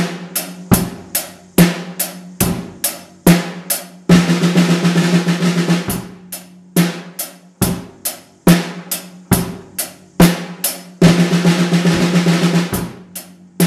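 Drum kit played in a steady beat of single strokes, broken twice by a quick dense run of snare-drum strokes about four seconds in and again about eleven seconds in: a Swiss Army triplet rudiment played as a 16th-note-triplet fill on the snare.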